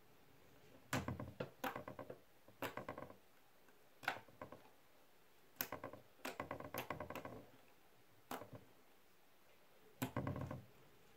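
Green slime squished and kneaded by hand, giving short runs of small clicks and pops several times, with quiet pauses between them.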